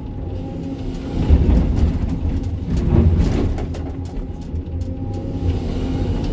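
Sany 305 excavator's diesel engine running steadily under load, with louder surges and a few knocks about a second in and around three seconds in.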